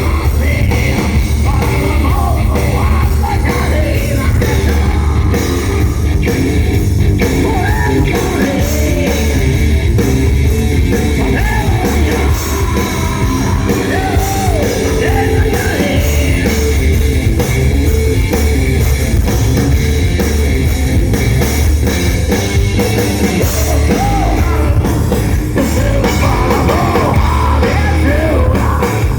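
Rock band playing live during a sound check: drums, heavy bass and distorted guitars, with a singer's voice over them.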